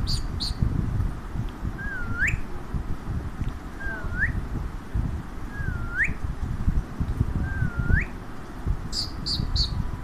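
Four short whistles, each dipping then rising, about two seconds apart, over steady rustling and handling noise. A few brief high chirps come near the end.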